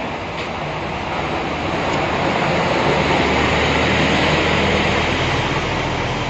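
Diesel engines of large tour coaches running as a coach drives past. The sound grows louder to a peak about halfway through, then eases off, over a steady low engine hum.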